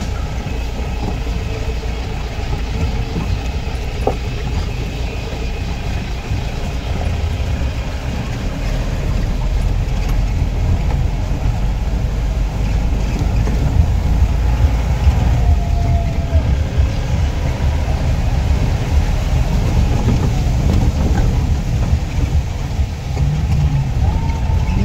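Off-road jeep's engine running as it drives over a rough dirt track, heard from inside the open cab. The engine noise grows louder about a third of the way through.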